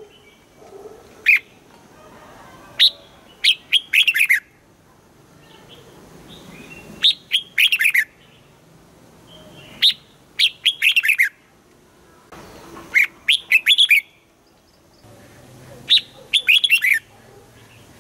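Red-whiskered bulbul singing: short phrases of several quick, sharp notes that sweep downward, one phrase every two to three seconds.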